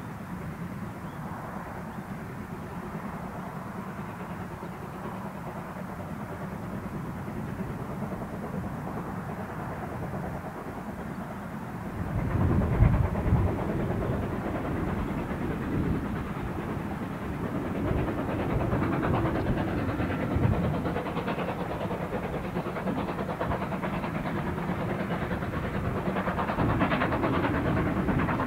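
Steam locomotive working a train, heard at first faintly at a distance. About twelve seconds in the sound becomes louder and closer as a steam tank engine approaches, with a run of chuffing exhaust beats over the running of the train.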